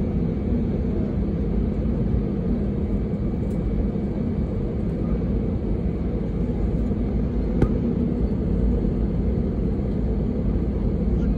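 Cabin noise of an Airbus A320 taxiing: a steady low rumble with a steady hum, heard inside the passenger cabin, and one faint click past the middle.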